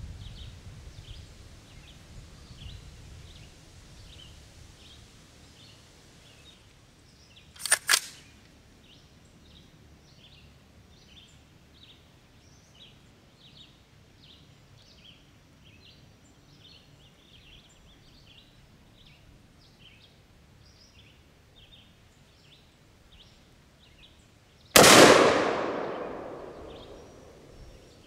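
A single shot from a home-built 5.56 AR-15 rifle about 25 seconds in. It cracks loudly and its echo dies away over about three seconds. Earlier, about 8 seconds in, there are two sharp clacks a fraction of a second apart.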